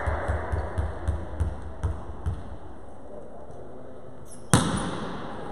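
A volleyball bounced several times on a wooden sports-hall floor, then, after a short pause, one sharp smack of the ball being struck for a serve, ringing in the hall.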